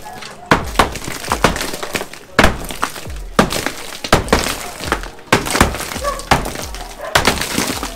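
Repeated hammer blows, several sharp strikes in quick succession about once a second.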